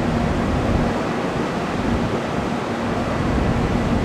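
Jet airliner engines running: a steady rushing noise with a faint low hum that comes and goes.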